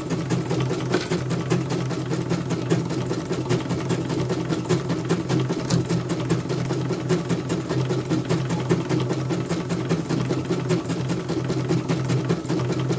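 Portable embroidery machine stitching at speed: a fast, even run of needle strokes over a steady hum.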